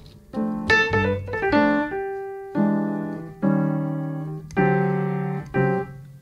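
Background music: keyboard chords, likely piano, struck roughly once a second, each left to ring and fade.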